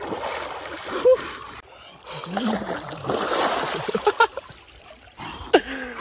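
River water splashing as a person swims and thrashes about in it, with a few short vocal exclamations between the splashes.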